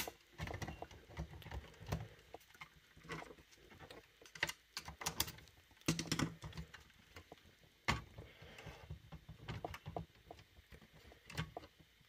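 Scattered small clicks and light metal knocks as a Hermes 3000 typewriter carriage and its mounting tabs are handled and pushed into place by hand.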